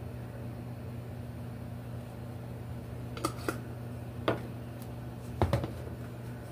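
Spice jars clicking and knocking a few times as they are handled and set down on a kitchen counter, the loudest knocks about two-thirds of the way in, over a steady low hum from an appliance or fan.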